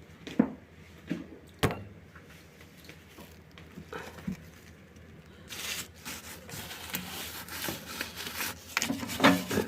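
A couple of sharp knocks, then paper tissue rubbing and crinkling as it wipes the inside of a microwave oven after steam cleaning.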